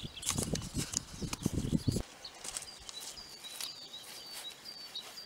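Rustling and knocking handling noise on the microphone for about two seconds, cutting off abruptly. Then comes a quiet outdoor background in which a small bird repeats a short, high, slightly falling chirp about twice a second.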